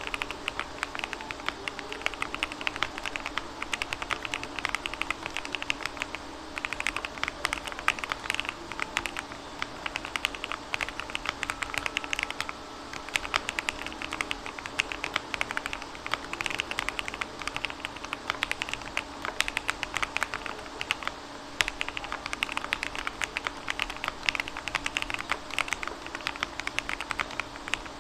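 Typing on a Sun68 mechanical keyboard fitted with 55 g TTC switches on a polycarbonate plate and hot-swap PCB, with GMK keycaps: a steady stream of fast keystrokes, broken by a few short pauses.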